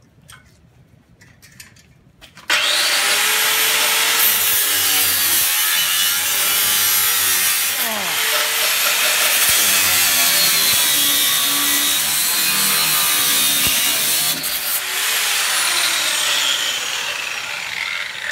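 Electric angle grinder starting up about two and a half seconds in and cutting through a rolled-steel roof rail, its whine wavering and dipping as the disc bites into the metal, then winding down near the end.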